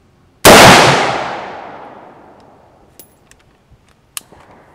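A single rifle shot from an AR-15 with an 18-inch mid-length gas system and an A2 birdcage flash hider, about half a second in, with a long echoing decay. A few light clicks follow near the end.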